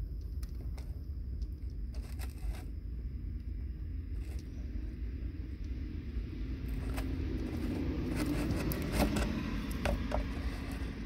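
Small clicks and scrapes of wire strippers and fingers working the insulation on thin sensor wires, over a steady low rumble. The handling noise gets fuller and the clicks sharper between about seven and ten seconds in.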